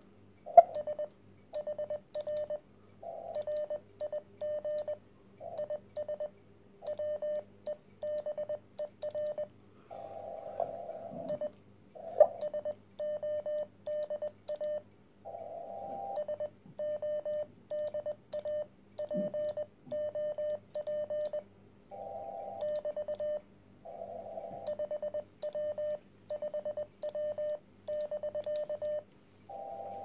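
Morse code keyed on a Weber Soda Pop single-band CW transceiver: a single steady tone switched on and off in dots and dashes, spelling out part of a contact ("RR FB FB ... HR RIG IS WEBER SODA POP, 5W 5W, BK"). Short patches of receiver hiss fill some of the gaps between words.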